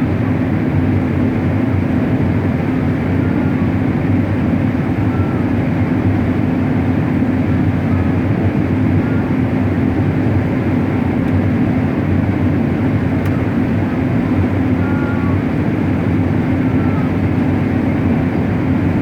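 Combine harvester running steadily while harvesting corn: a constant engine and machinery drone.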